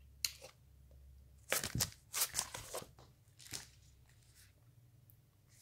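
Crinkling and rustling of a clear plastic comic book sleeve being handled, in a run of short bursts about a second and a half in, with a few lighter rustles after.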